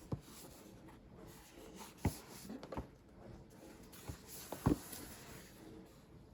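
Packaging being handled: a few scattered soft knocks and light rustling, the loudest knock about four and a half seconds in.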